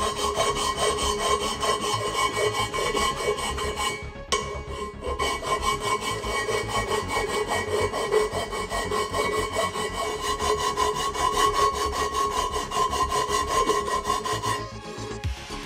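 Steel bar being rubbed back and forth by hand over an abrasive surface to grind down its edges: continuous scraping strokes, with a short break about four seconds in, stopping shortly before the end.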